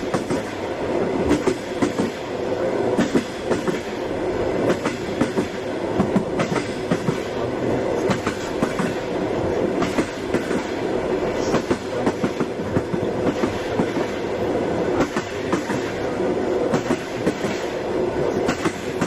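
Train running: a steady rumble with frequent, irregular clacks and knocks.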